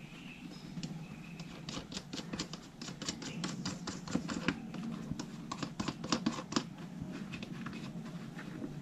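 Small plastic parts clicking and scraping in irregular runs as a USB charger and voltmeter unit is pushed and tightened into its mount, over a steady low hum.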